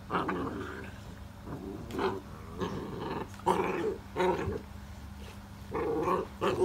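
XL American Bully puppies growling while they play-fight, in about eight short, irregular bursts.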